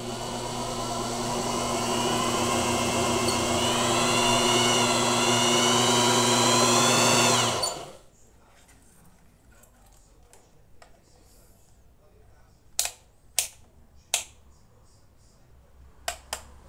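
Brushed electric motor spinning a belt-driven homemade three-phase generator: a steady whine that wavers up in pitch, then cuts out suddenly about seven and a half seconds in, which the owner takes for the overworked motor having died. A few sharp clicks follow near the end.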